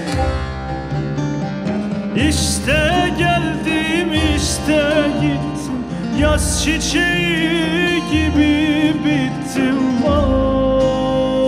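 Turkish folk music: a bağlama (long-necked saz) played with a man's voice singing a wavering, ornamented melody that comes in about two seconds in, over low bass notes.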